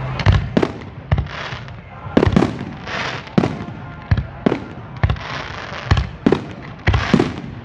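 Fireworks display: about a dozen sharp bangs of bursting shells in quick, irregular succession, with hissing crackle in between.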